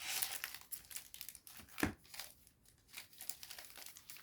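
Foil booster packs crinkling as they are shuffled by hand, with one sharper knock a little under two seconds in.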